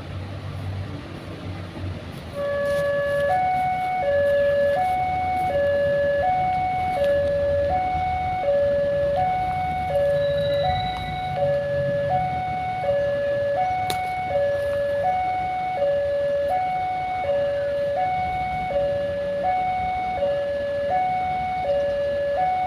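A two-tone electronic warning alarm starts about two seconds in, after a low rumble, and then alternates steadily between a lower and a higher note, each held for under a second.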